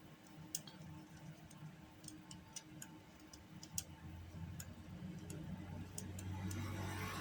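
Scattered light clicks and taps of plastic parts being handled as a laptop stand's cooling fan is pushed into place, with a low rumble of handling growing louder from about four seconds in.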